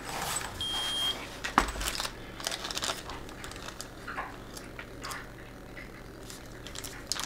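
A Keto-Mojo GK+ blood glucose and ketone meter gives one short, high electronic beep about half a second in as a test strip is used. Small clicks and rustles of test strips and packaging being handled follow.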